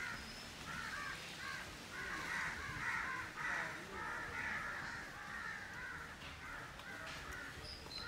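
Many birds calling over one another in a busy chorus, swelling about two seconds in and thinning out near the end.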